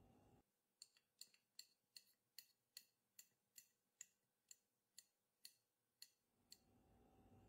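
Knife slicing peeled bananas on a ceramic tray, the blade clicking against the tray about two or three times a second, about fifteen faint cuts that stop shortly before the end.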